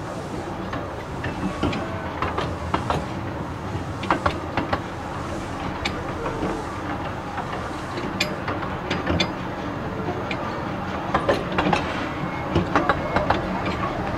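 Small 15-inch-gauge railway carriage rolling slowly along the track, heard from on board: a steady rumble of wheels on rail with irregular clicks and clanks from rail joints and couplings.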